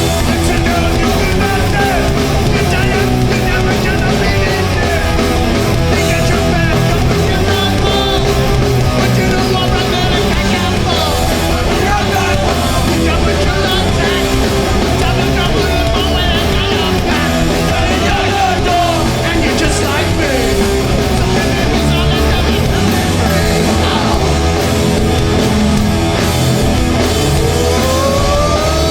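Loud live hardcore punk band playing a song at full volume, with electric guitars, bass and drums.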